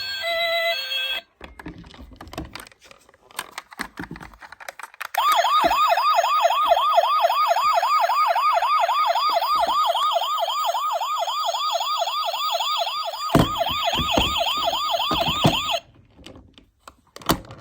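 Toy ambulance's electronic siren sounding a fast warble, sweeping up and down about five times a second, for about ten seconds before cutting off. Small clicks and knocks come before it starts, and a few knocks just before it stops.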